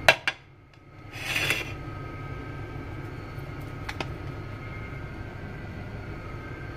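Metal serving spoon clinking against a plate and a steel cooking pot while rice is served. There are two sharp clinks at the start, a short scraping rustle about a second in, and another clink about four seconds in, over a steady low hum.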